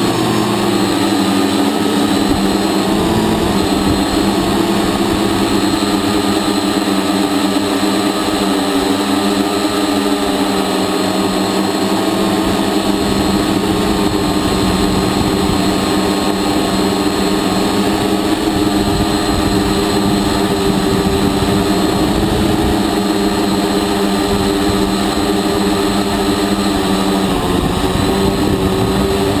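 Hexacopter's electric motors and propellers droning steadily in flight. Several pitches waver slightly up and down as motor speeds shift, over a rough low rumble.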